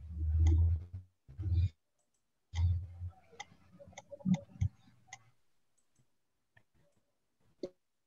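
Scattered sharp clicks picked up by a computer microphone, mixed with short low muffled thumps in the first few seconds. The sound thins out after about five seconds, with one more click near the end.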